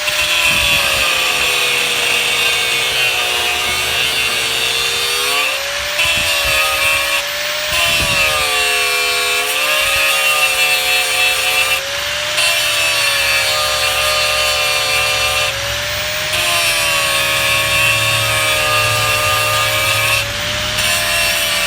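Electric power tool grinding on a seized bolt in an exhaust manifold: a steady motor whine under a harsh grinding hiss. The pitch sags under pressure and briefly eases off about five times when the tool is lifted.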